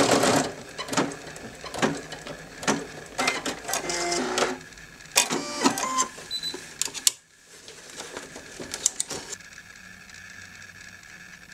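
A Brother NV2600 embroidery machine's fast, even stitching stops just after the start. Then come scattered clicks, knocks and short whirrs from the machine's mechanism and from the hoop and fabric being handled. From about three quarters through there is only faint, steady room noise.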